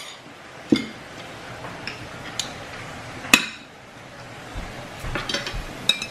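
Metal spoons and forks clinking and scraping against sizzle plates and bowls as food is served and eaten: a few scattered clinks, the sharpest about three seconds in, and a quicker run of small clinks near the end.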